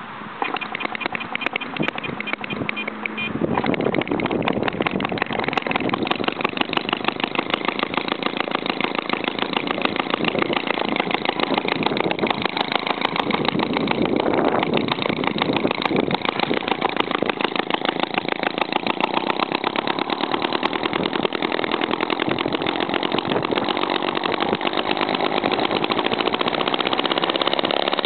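RMC Type B model hit-and-miss gas engine running, with a fast, even train of firing strokes; it picks up and gets louder about three and a half seconds in.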